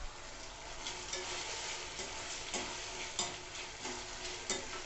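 Chopped onion and tomato sizzling in oil in a stainless steel kadai, stirred with a perforated steel spatula that scrapes against the pan about six times. The tomatoes are being sautéed with rock salt so that they soften quickly.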